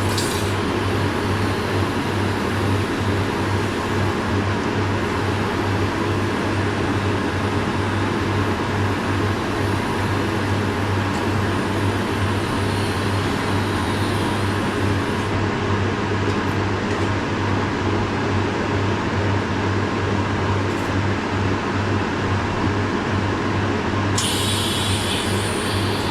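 Workshop machinery running steadily with a strong low electrical buzz that does not change.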